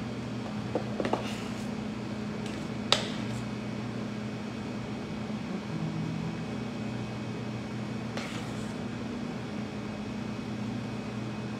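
Steady low hum of bakery kitchen equipment. Over it, a few light clicks and one sharper tap about three seconds in come from a metal offset spatula against the steel bowl and cake turntable as lemon cream is spread on a cake, with a soft scrape near eight seconds.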